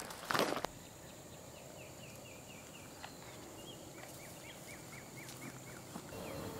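A few boot steps crunching on gravel, then quiet open-air background with a small songbird singing two quick runs of short repeated chirps.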